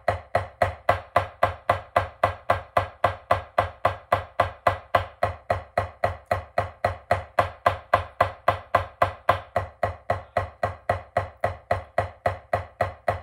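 Snare drum struck with sticks in an even, unbroken stream of single strokes, about four a second. This is the 8/8/16 drumline warm-up exercise.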